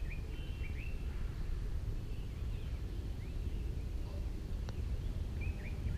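Steady low wind rumble with small birds chirping now and then; about three-quarters of the way in, a single light click of a putter striking a golf ball.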